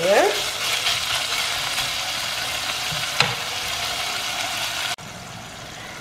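Chicken thigh pieces and onion sizzling in oil in an enamelled cast-iron pot, stirred as the meat sears and browns, with a single sharp clack about three seconds in. Near the end the sizzle suddenly drops quieter.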